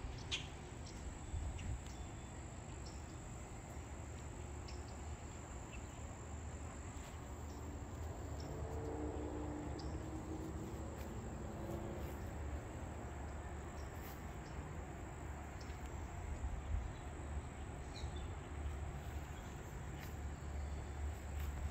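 Steady, high-pitched insect trill, typical of a cricket, continuing unbroken, over a low rumble and a few faint ticks.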